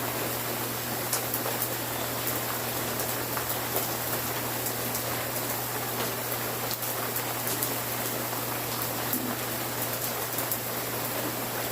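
Steady rain falling, with scattered sharper drop hits and a low hum underneath.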